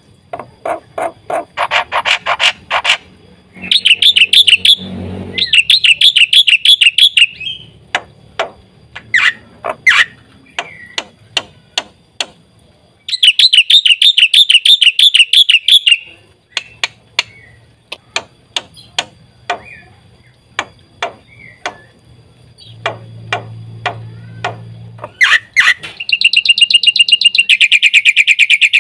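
Black-winged myna (jalak putih) singing: a run of sharp, clicking chak notes broken by three loud stretches of fast rattling trills, a few seconds each.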